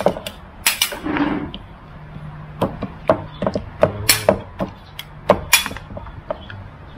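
Cleaver chopping a stewed pork leg: a series of sharp, uneven chops.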